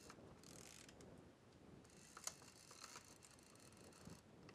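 Advance lever of a Mamiya 70mm roll-film back being cranked to wind freshly loaded film on from the start mark, giving two faint spells of ratcheting with a sharp click in the second.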